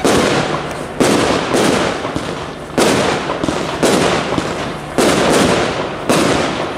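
Pyrofactory Hot Show compound firework cake firing shot after shot: a sudden bang about once a second, with lighter shots in between, each trailing off over about a second.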